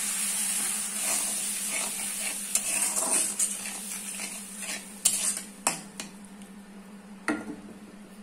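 Metal spatula stirring and scraping an onion-and-spice masala in a kadai just after a splash of water: sizzling that dies away, with sharp clinks of the spatula against the pan, the loudest about five seconds in and again near seven seconds.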